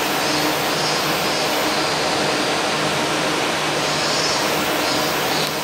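A steady mechanical hum with a rushing noise behind it, holding at one level throughout.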